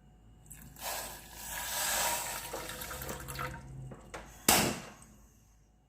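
Half a tumbler of water poured into a bowl of sugar for sugar syrup, a steady splashing pour lasting about three seconds. A brief sharp noise follows about four and a half seconds in.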